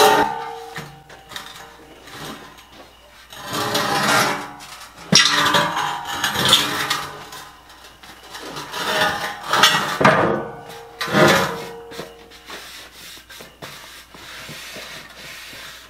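A welded rectangular steel-tube frame being handled on a steel welding table: a sharp clang near the start, then a run of clanks and scraping of steel on steel as it is tipped up on edge and laid back down, some knocks leaving the tube ringing. It grows quieter near the end.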